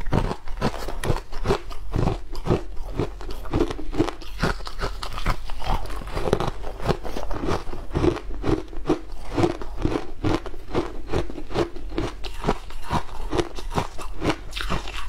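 Shaved ice being bitten and chewed, a dense, steady run of crisp crunches several times a second.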